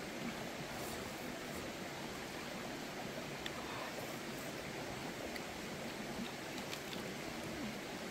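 Steady, even hiss of outdoor background noise, with a few faint clicks.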